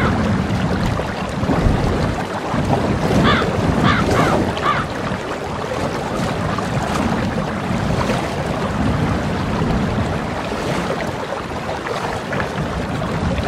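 Ocean-waves sound effect: a steady wash of surf, with a few short bird calls about three to five seconds in.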